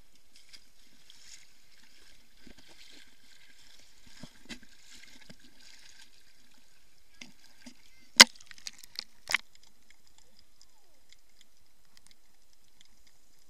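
Muffled sea water sloshing and lapping around a waterproof camera held at the surface and dipped under. A few sharp knocks come through, the two loudest about eight and nine seconds in.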